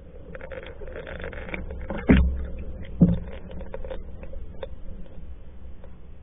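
Water washing and gurgling along a pack canoe's hull, heard from a camera under the water line, with scattered small clicks. Two sharp thuds about a second apart, a couple of seconds in, are the loudest sounds.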